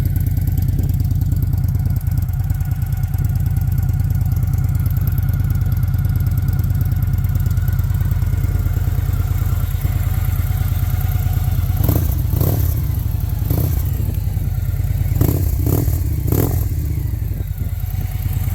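2016 Victory Cross Country Tour's V-twin idling with a steady low pulse through aftermarket Mutazu Thunder exhaust pipes, with a few short sharp blips in the second half.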